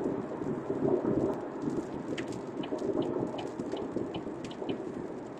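Raindrops ticking on a car's windshield over the steady rumble of road and tyre noise, heard inside the moving car's cabin.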